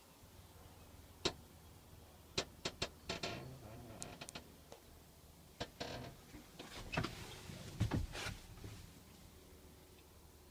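Scattered clicks and knocks, in a quick cluster of several about two and a half seconds in and loudest around eight seconds in: the cab door and fittings of a backhoe being handled.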